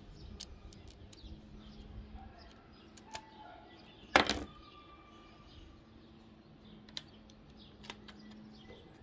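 Plastic clicks and clatter of LEGO pieces being pried apart by hand as the side covers come off a brick-built Winchester 1887 model, with one loud clack a little past the middle. Faint bird chirps sit behind.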